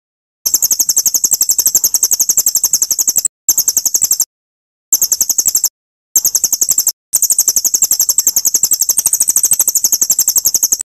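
Songbird from a murai batu training recording giving a very fast, high-pitched trill of about a dozen even notes a second. It comes in five phrases that stop and start abruptly.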